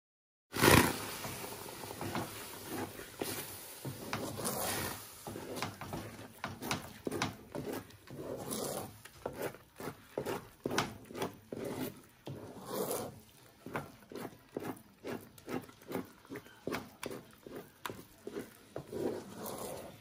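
Wooden spoon stirring and working thick waterfufu (cassava dough) in a metal pot, rubbing and scraping against the pot in regular strokes, about two a second.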